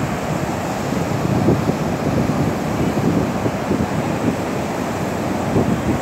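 Wind buffeting the microphone, a steady low rumble over the wash of surf on the shore.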